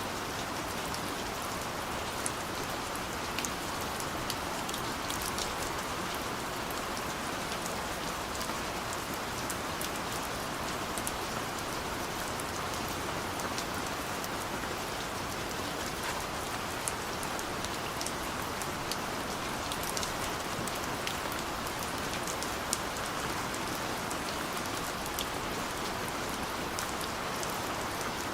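Steady rain falling on a surface, an even hiss with scattered distinct drop ticks.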